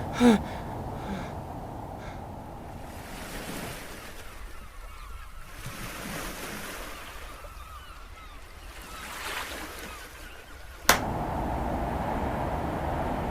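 Rushing, whooshing noise that swells and fades twice, with a sharp click about eleven seconds in followed by a steadier, louder hiss.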